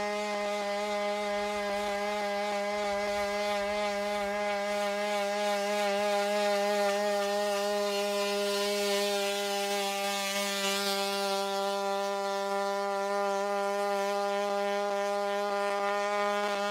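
The WildCat quadruped robot's onboard engine, which drives its hydraulics, running at a steady, unchanging pitch with a buzzy, many-overtoned tone while the robot gallops. Faint short taps sound now and then over it.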